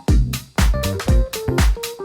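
Background electronic dance music with a steady four-on-the-floor kick drum, about two beats a second, and a bass line under it.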